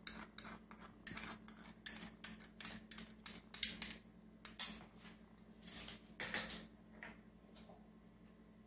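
A metal spoon clinking and scraping against a small glass bowl, tapping salt out into a pot of water. It is a quick uneven series of clinks, a few louder, that stops about seven seconds in.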